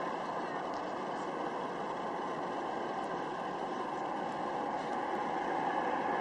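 Jet engines of a large airliner on final approach: a steady rushing noise that grows a little louder near the end as the aircraft comes closer.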